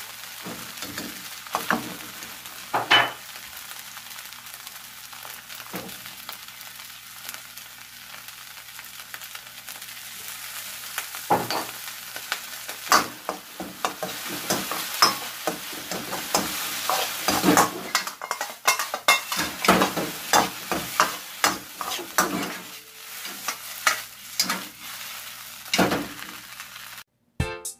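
Shrimp fried rice sizzling in a wok while a ladle stirs, tosses and scrapes it, with sharp clacks of the ladle on the metal. The stirring grows much busier about halfway through, as sesame oil and green onion go in.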